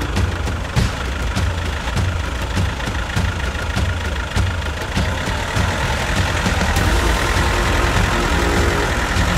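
Off-road 4x4's engine running at low revs, a steady low rumble with scattered knocks and clatter over it.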